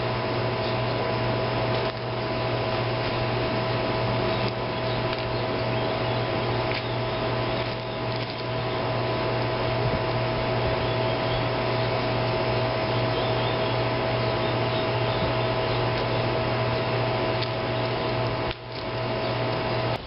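A motor-driven machine running steadily: an even whir with a low hum and two steady higher-pitched tones, dipping briefly near the end.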